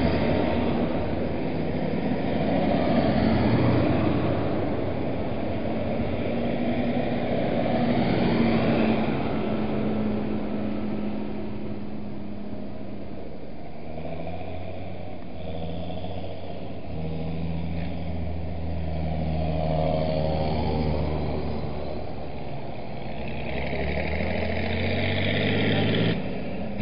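Tractor diesel engines running as a line of tractors drives along a road, one fading away early on and the next drawing closer and louder towards the end.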